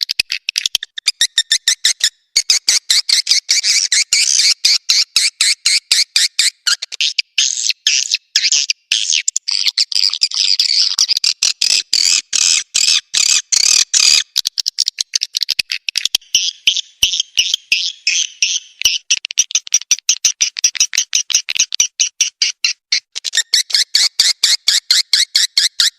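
Recorded swiftlet calls used as a swiftlet-house lure sound: a fast, unbroken run of short, high chirps.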